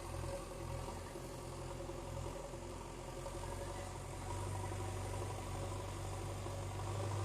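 Excavator's diesel engine running steadily, growing a little louder about four seconds in.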